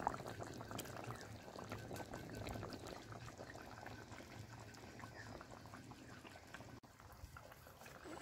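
Rohu fish curry boiling in a kadai over an open fire: a steady, soft bubbling with many small pops.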